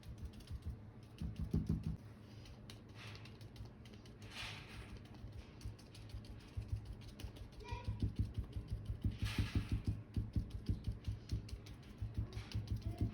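Many quick, light taps in an irregular run, sparse at first and then dense near the end, with two brief swishes about four and nine seconds in.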